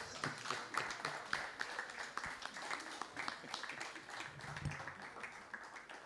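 Audience applauding, dense clapping that thins out toward the end.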